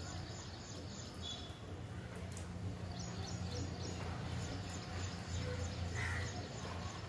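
Outdoor monsoon-rain ambience: a steady hiss over a constant low wind rumble. Small birds chirp now and then, with a quick run of high notes about three seconds in.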